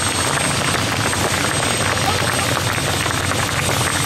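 Helicopters running on the ground, engines and rotors turning with a steady, rapid chop.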